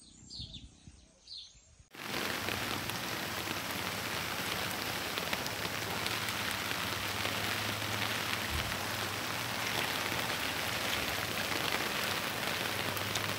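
A couple of faint bird chirps, then about two seconds in, an abrupt change to heavy rain falling steadily on a flooded street: a dense, even hiss.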